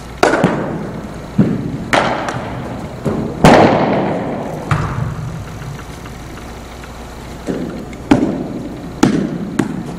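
A run of about a dozen sharp knocks and thuds at irregular intervals, each ringing out in a large echoing room, as from indoor baseball practice. The loudest hits come about three and a half seconds in and again about eight seconds in.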